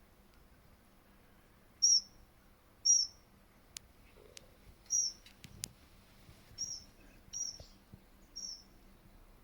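A small bird giving short, high-pitched call notes, repeated roughly once a second, with a few faint sharp clicks in between.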